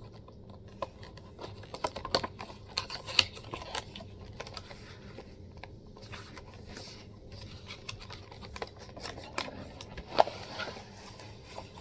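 A model kit's box and packaging being opened and handled: a run of small clicks, scrapes and rustles, with sharper clicks about three seconds in and again near ten seconds.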